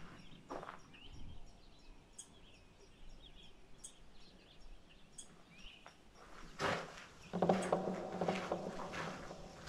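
Footsteps of someone walking a woodland trail, with short bird chirps heard in a quieter stretch. Near the end comes a louder passage of crunching and rustling with a low hum under it.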